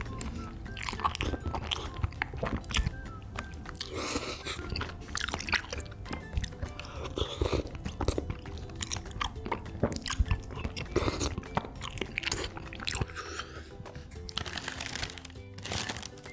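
Close-up mouth sounds of eating rosé tteokbokki: a series of wet slurps as long sauce-coated strands are sucked up from chopsticks, with chewing between them.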